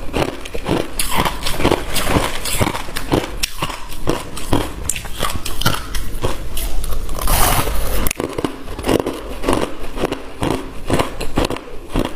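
Chunks of frosty crushed ice crunching as they are bitten and chewed, a rapid series of crisp crunches, several a second.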